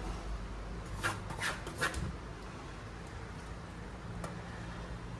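Knife cutting a large seer fish into slices on a cutting block: three or four quick strokes about a second in, over a low steady hum.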